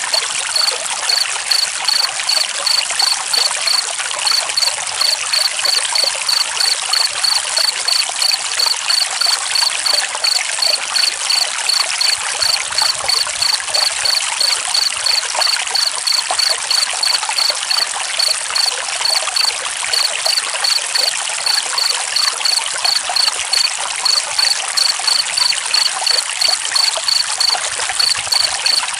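Steady stream of running water, with a cricket chirping in an even rhythm, about two to three chirps a second.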